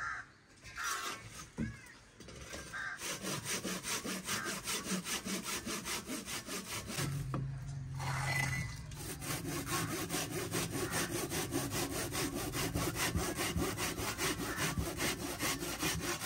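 Hand saw cutting through a slab of dried mud, rasping back and forth. A few separate scrapes come first, then steady, quick, even strokes from about three seconds in.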